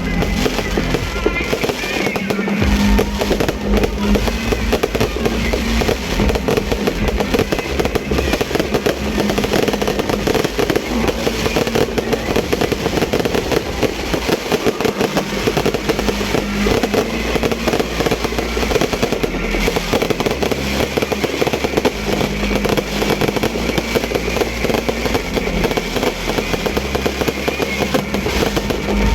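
New Year fireworks going off in a dense, continuous barrage of bangs and crackling, with music playing underneath.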